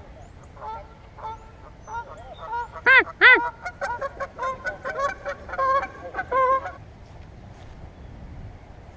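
Geese honking: a quick run of repeated calls for about six seconds, loudest about three seconds in, then stopping.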